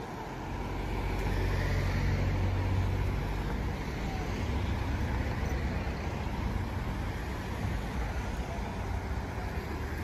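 Road traffic: a motor vehicle passes on the road beside the walkway, its low engine rumble and tyre noise swelling over the first few seconds, then easing into a steady traffic hum.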